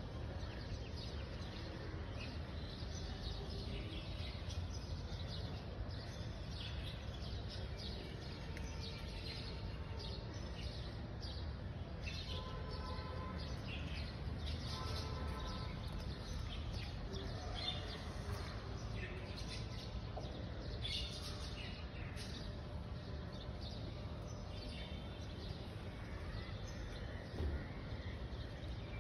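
Outdoor ambience: birds chirping now and then over a steady low background hum, with a couple of short steady tones about halfway through.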